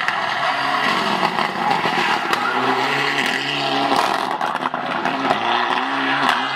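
Mitsubishi Lancer Evolution rally car's turbocharged four-cylinder engine revving hard at full throttle, its pitch climbing and dropping again and again through gear changes as it passes, with tyre and gravel noise from the road.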